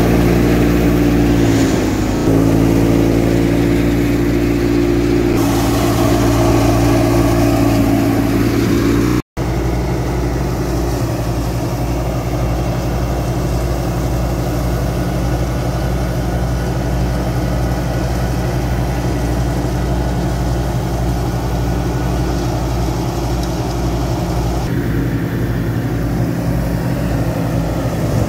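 Massey Ferguson 385 tractor's four-cylinder diesel engine running steadily under load, driving a belt-driven wheat thresher whose drum and fan add a whirring drone. The sound cuts out for an instant about nine seconds in and then goes on as a more even, less tonal drone.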